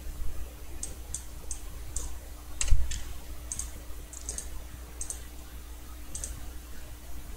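Computer keyboard keys and mouse buttons clicking, about a dozen irregular clicks with one louder knock near the middle, over a faint steady hum.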